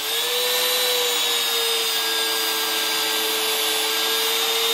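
Trim router, fitted as the spindle of a CNC router, running with a steady high whine. Its pitch climbs within the first second, then eases a little lower and holds as its speed dial is turned down.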